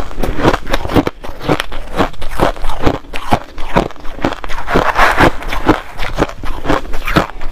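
Close-miked crunching of crushed ice being chewed, crisp crunches about three or four a second. Around five seconds in, a denser gritty rush as the metal spoon is pushed into the heap of crushed ice.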